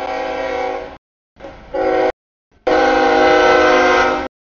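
Diesel freight locomotive's multi-note air horn sounding three blasts: a long one, a short one about a second and a half in, and a longer one near the end.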